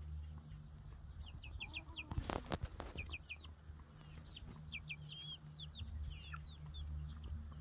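Chicks peeping in quick runs of short, high, falling peeps, over a steady low hum. A brief noise cuts in a little over two seconds in.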